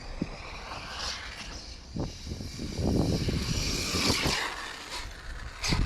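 Electric RC truck running, its motor whining as it speeds over dirt, with a rougher, louder stretch in the middle.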